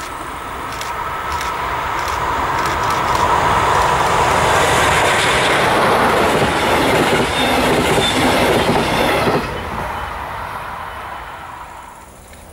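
Electric double-deck regional passenger train passing close by, its wheels rumbling and clattering on the rails. It grows louder as it approaches, holds, then drops off sharply about nine seconds in and fades.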